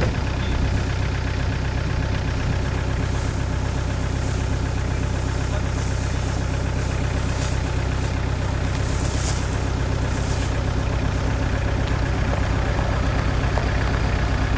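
Four-wheel-drive SUV engine idling steadily, with a low, even hum.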